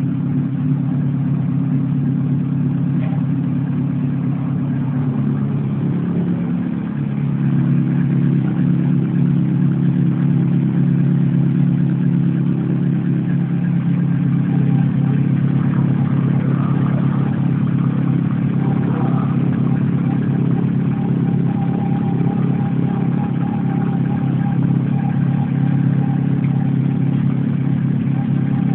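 Honda CB1300 Super Four's 1,300 cc inline-four engine idling steadily with the bike parked on its side stand, a little louder from about seven seconds in.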